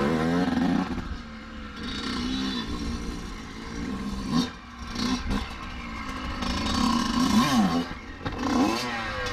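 Dirt bike engine revving up and down as the rider goes at a log to hop it, with a sharp knock about four and a half seconds in.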